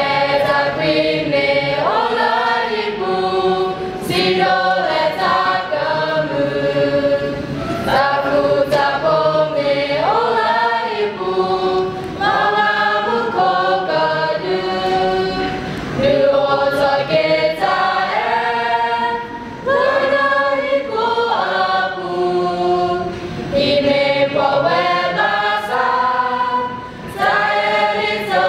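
Mixed youth choir of boys and girls singing together in phrases of held notes, with brief breaths between phrases.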